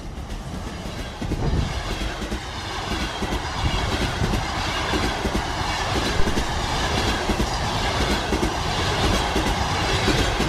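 A train running along the track, its wheels clattering with many quick clicks over a steady rushing noise that grows louder over the first couple of seconds.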